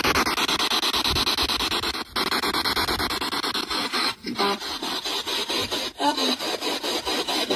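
PSB7 spirit box sweeping through radio stations: a steady hiss of static chopped many times a second, with two brief snatches of pitched radio sound.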